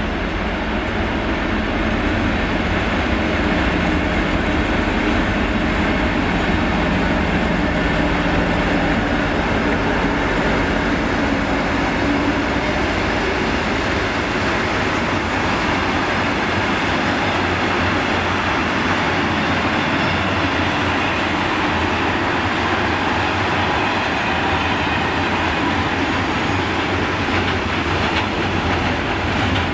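Diesel freight locomotive hauling a loaded timber train through a station. Its engine note is steady for the first dozen seconds or so as it passes. Then comes the continuous rumble and clatter of the log wagons rolling by.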